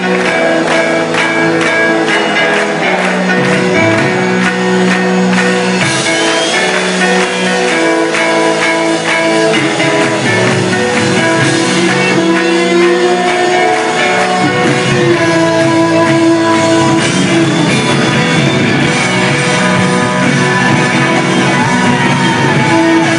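Rock band playing live, with electric guitars holding sustained chords and some singing, recorded from the audience.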